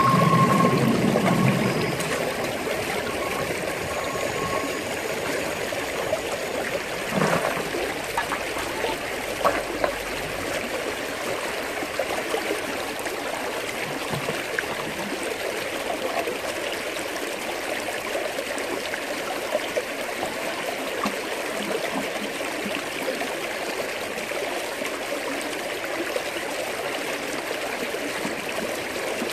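Creek water rushing steadily through an aluminium gold-panning sluice box. It is louder for the first two seconds, when a steady tone is also heard. A couple of short knocks come about seven and nine seconds in.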